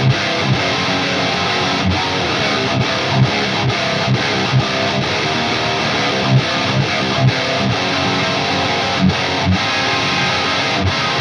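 High-gain distorted electric guitar playing heavy metal rhythm riffs on its own, with repeated low chugging accents. The sound is an ESP LTD NW-44 with a Bare Knuckle Aftermath pickup through a Peavey Invective 120 tube amp head on its lead channel, with the built-in boost and noise gate on.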